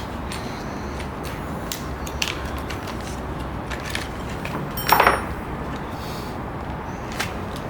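Small metal parts being handled: Allen screws and the mount's metal pieces giving scattered light clicks and clinks, with a louder rattle of clicks about five seconds in, over a steady low hum.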